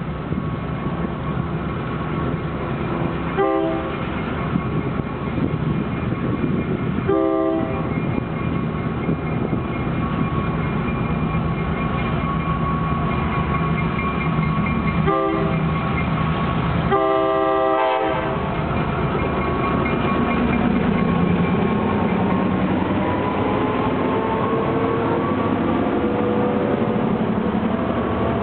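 Freight diesel locomotives with Roots-blown EMD 645 engines running steadily and sounding four horn blasts: short, longer, short, longer. The engines' pitch rises in the last several seconds as they rev up.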